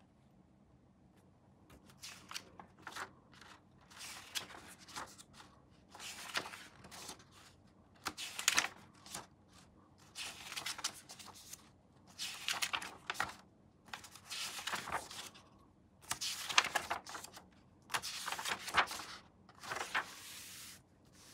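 Hands working on a plastic scale-model kit, making repeated bursts of rustling and crinkling with small clicks. There are about ten bursts, each about a second long and roughly two seconds apart.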